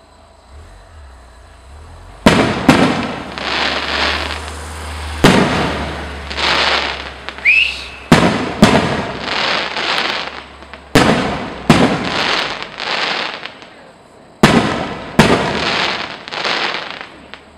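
Aerial firework shells bursting, about nine sharp bangs mostly in pairs a second or less apart, starting about two seconds in. Each bang is followed by about a second of crackle from the burst. A short rising whistle comes about seven seconds in.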